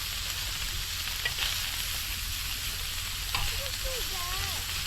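Pork belly frying in a pan: a steady sizzling hiss with a few light pops.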